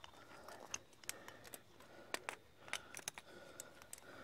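Faint, irregular clicks and clinks of a trad climbing rack, carabiners and cams knocking together as the climber moves up the rock.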